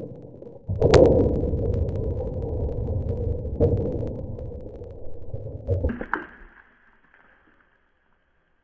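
Forged steel nunchucks smashing stone and brick blocks on a tree stump. There is a sharp crack about a second in, another a few seconds later and a cluster near the end, over a dense low rumble of breaking and falling debris that dies away about seven seconds in.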